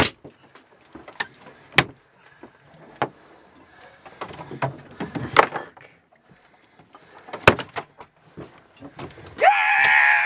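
Freshly caught Pacific halibut thrashing on a fibreglass cockpit floor: scattered sharp thumps and slaps, then a short high-pitched squeal near the end.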